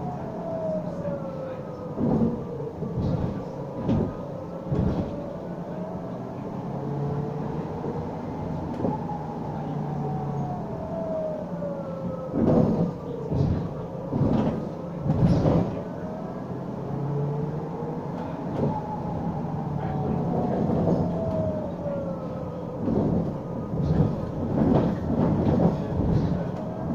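City bus in motion, heard from inside the passenger cabin: a whine that falls and rises in pitch several times as the bus slows and speeds up, over a low hum, with scattered rattles and knocks from the cabin.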